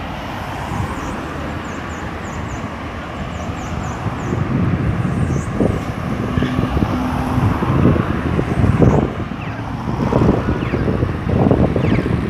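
Road traffic at a street intersection: cars driving past close by, growing louder from about four seconds in.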